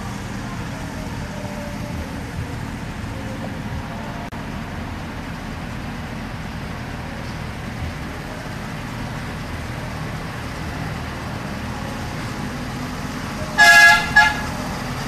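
Gas engine of a 12-inch-gauge miniature locomotive running steadily. Near the end a horn gives one loud toot, then a short second one.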